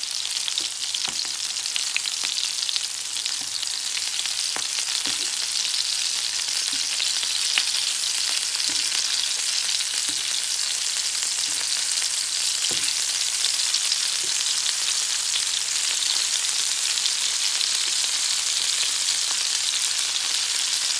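Minced-meat patties sizzling steadily in hot oil in a frying pan, with a few sharp clicks now and then as a metal fork turns them against the pan.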